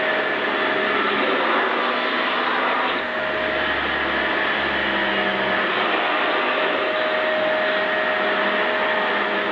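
Aluminium-bodied vacuum cleaner running steadily, its motor giving a constant whine over a rush of air. A low rumble joins in from about three seconds in until about five and a half seconds.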